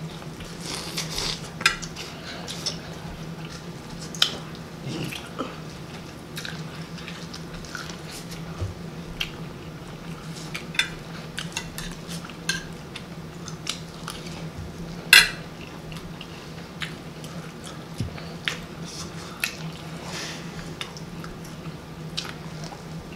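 Close-up eating sounds: biting and chewing corn on the cob and shells and cheese, with scattered sharp mouth smacks and clicks of a fork on a plate, the loudest about two-thirds of the way through. A steady low hum runs underneath.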